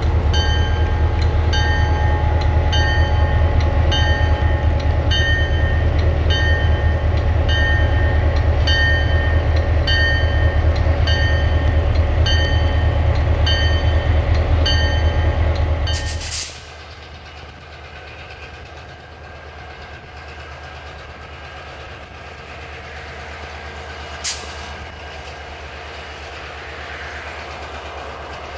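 Diesel yard locomotive running loudly with its bell ringing steadily, about one and a half strokes a second. About sixteen seconds in the sound cuts to a quieter, more distant locomotive running, with a single sharp click late on.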